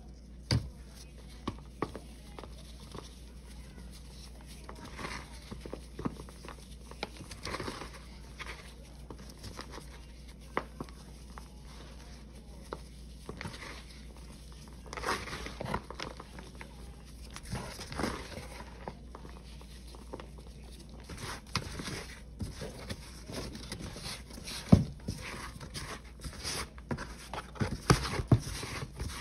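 Gloved hands crushing and crumbling dried balls of Ajax, Pine-Sol and Palmolive cleaning paste and pressing the loose chalky powder: soft crunching and crackling with scattered sharp snaps, the sharpest about three-quarters of the way through.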